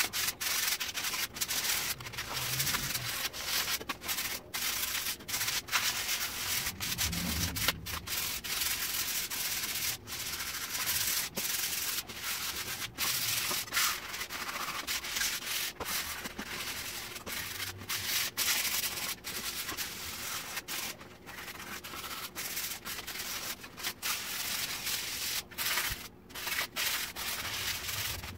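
Sandpaper rubbed by hand over painted wooden boards in quick back-and-forth strokes with brief stops, wearing the paint down to give the sign a weathered look.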